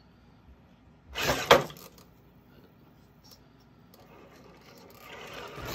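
A short clatter about a second in, ending in a sharp knock that is the loudest sound; otherwise faint background noise that grows louder toward the end.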